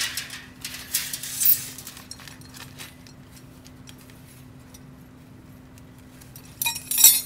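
Plastic packet of small bolts being handled and opened: crinkling rustles about a second in and again, louder, near the end, with a few light clinks of hardware between. A steady low hum runs underneath.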